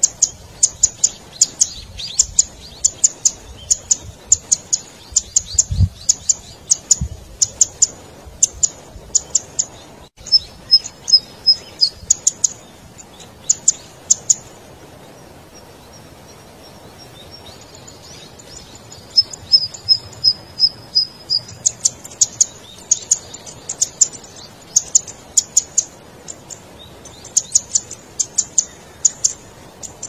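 Golden-headed cisticola (cici padi merah) singing: quick series of sharp, high 'tik' notes in irregular bursts, with two short trills of evenly spaced notes, about ten and about twenty seconds in, and a lull of a few seconds in between.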